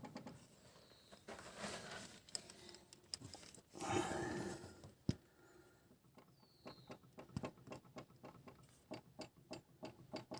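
Faint, irregular clicking and light knocking of car parts being handled, with a short rustling patch about four seconds in and a sharper click about a second later.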